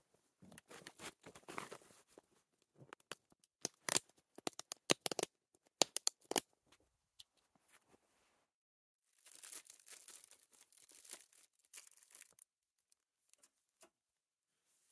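Snowshoe bindings being strapped and adjusted: sharp clicks and ripping, tearing strap sounds. After a pause near the middle, a few seconds of rustling as gear is handled in the snow.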